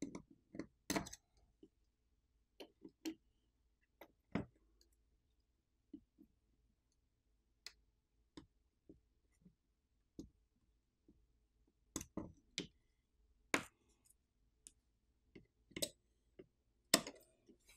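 Sparse, irregular small clicks and taps of tools working on a Google Pixel 8 Pro's internal parts during disassembly, with short clusters about a second in, around four seconds in, and near the end.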